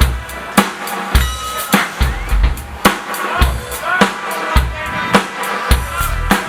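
Live band playing an instrumental passage, led by a drum kit keeping a steady beat of kick drum and sharp snare hits, with held notes from other instruments underneath.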